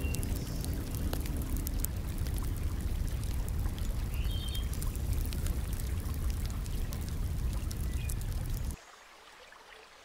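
Steady rush of water with many small ticks and drips over it, which cuts off abruptly about nine seconds in, leaving only a faint hiss.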